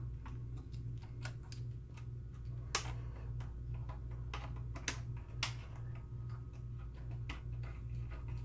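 Scattered small clicks and taps as metal shielding and a screw are worked into place inside an opened DLP projector's chassis, with a few sharper clicks in the middle, over a steady low hum.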